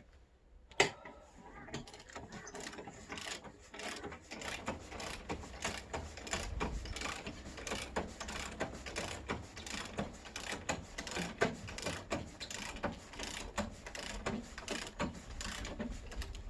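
Truck camper jack being cranked up, its gears clicking quickly and evenly after one sharp click about a second in.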